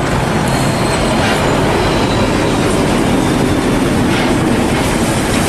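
Trucks driving past on a road, among them a container semi-trailer: a steady rush of engine and tyre noise.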